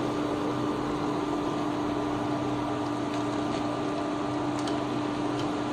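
Potato strips deep-frying in hot oil, a steady sizzle, over a steady hum. A few faint clicks near the end as the wire skimmer is handled.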